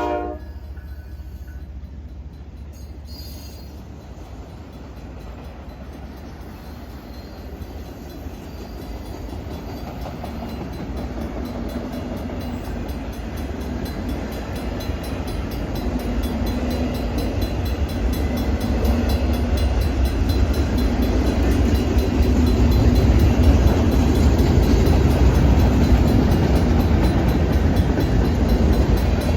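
A Norfolk Southern manifest freight train rumbling on the rails, growing steadily louder through the first two-thirds and then staying loud. A horn blast cuts off right at the start.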